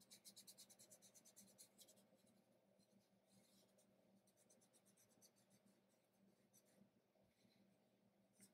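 Very faint fingertip rubbing of chalk pastel into paper in quick back-and-forth strokes, blending the colours, with a short lull in the middle and a pause near the end.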